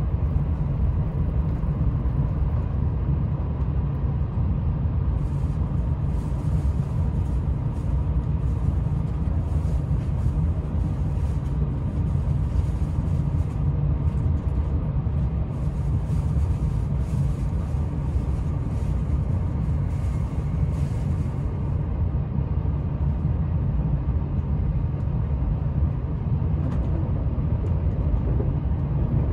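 Steady low rumble of an E4 series bilevel Shinkansen train running, heard from inside the upper-deck cabin.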